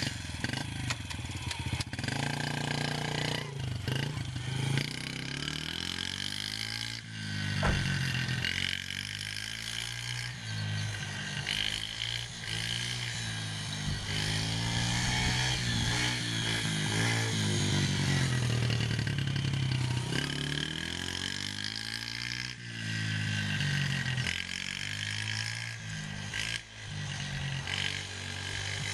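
Yamaha TT-R50 dirt bike's 50cc single-cylinder four-stroke engine running as the bike rides away and circles. Its pitch rises and falls again and again as the throttle opens and eases off. A single sharp knock comes about seven seconds in.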